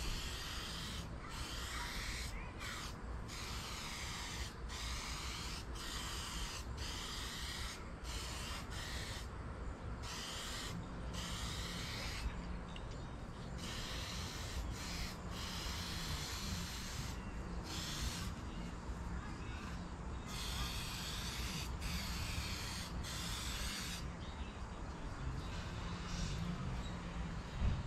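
Aerosol spray can of bed liner coating hissing in a string of bursts, each a second or two long, with short breaks between them as the nozzle is pressed and released. A low wind rumble on the microphone runs underneath.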